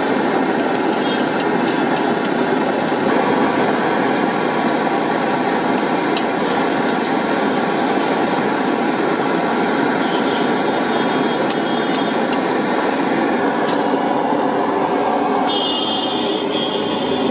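Hot oil sizzling steadily as small mandeli fish deep-fry in a large iron kadai, with a couple of light clicks.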